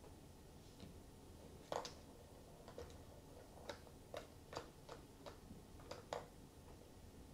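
Soft, irregular plastic clicks and taps, about ten over a few seconds, as kittens bat the balls around a plastic tiered ball-track cat toy.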